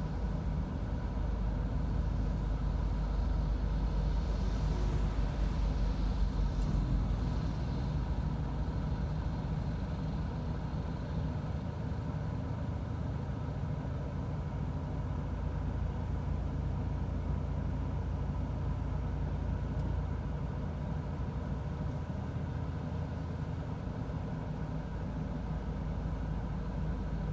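A car driving in the rain: a steady low rumble of engine and road noise with a fainter hiss over it.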